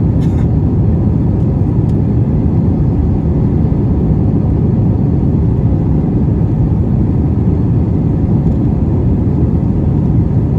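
Steady, loud cabin rumble inside an Airbus A321 climbing after takeoff: jet engine and airflow noise heard from a window seat over the wing, deep and even with no change.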